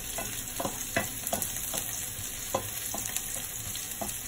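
Diced onion sizzling in hot oil in a frying pan while a wooden spatula stirs it, scraping and tapping against the pan about two or three times a second over a steady frying hiss.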